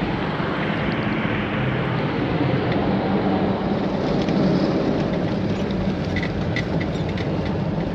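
Car driving along a road: steady road and engine noise, with a few faint ticks in the second half.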